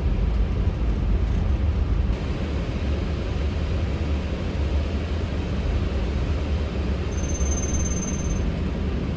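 Steady cockpit noise of a Boeing 777 freighter taxiing with its engines at idle: a low rumble under a hiss of airflow. A faint, high, thin tone sounds for about a second and a half near the end.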